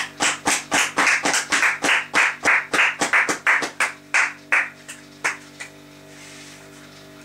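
Rhythmic claps, about three a second, over music with steady held tones; the claps slow and stop about five seconds in, leaving the held tones.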